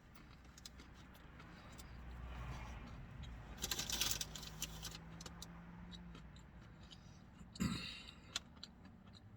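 Eating sounds inside a car: paper food wrapper crinkling and rustling, with small clicks throughout and two louder crackly bursts, the bigger one about four seconds in. A low rumble with a steady hum swells and fades in the middle.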